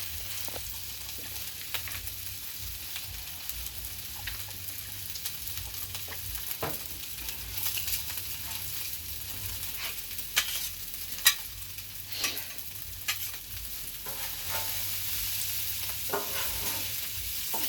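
Fried rice frying on a Blackstone flat-top griddle: a steady sizzle, with a spatula scraping and clicking on the griddle top as the rice is stirred, two sharper clicks about ten and eleven seconds in.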